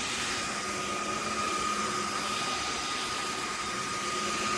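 Cordless stick vacuum cleaner running steadily: a hiss of airflow with a constant motor whine over it.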